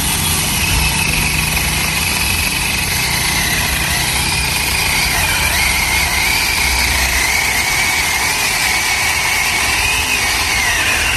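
Makita cordless brushless angle grinder fitted with a chainsaw bar and chain, running under load as it saws through a wooden log. Its high whine dips and recovers a few times as the chain bites, especially around the middle and near the end.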